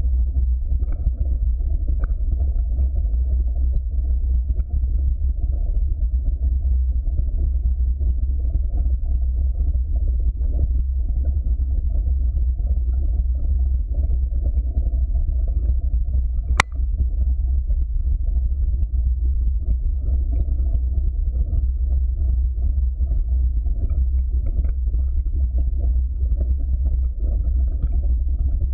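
Steady, muffled low rumble of a mountain bike rolling fast down a dirt trail: tyre and frame vibration picked up by a handlebar-mounted camera. One sharp click about halfway through.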